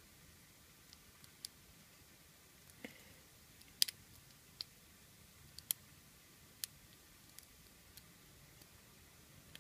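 Faint, irregular metallic clicks and ticks, about a dozen, from a lock pick and tension tool working the spool pins of a pin-tumbler lock during single-pin picking. The loudest click comes about four seconds in.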